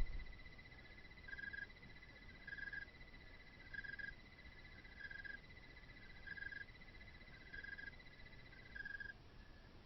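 Night chorus of calling animals: a steady fast high trill that stops near the end, over a short call repeated about every second and a quarter. A brief low thump right at the start.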